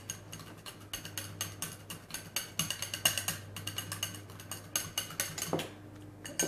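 A metal wire whisk clinking quickly and irregularly against a bowl as mayonnaise-based sauce is stirred together, with a faint steady hum underneath.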